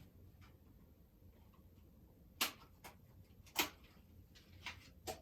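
Two sharp knocks about a second apart, then a few lighter taps, from objects being handled and set down on a hard surface.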